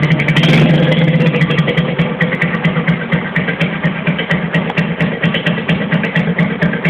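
Engine idling through a gutted Aluminium RS exhaust muffler, emptied of its insides: a loud exhaust note made of rapid, even pulses. It eases slightly after about the first second, then holds steady.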